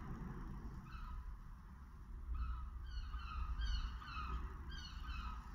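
A bird calling in short, repeated notes, a few at first and then several a second through the second half, over a steady low rumble.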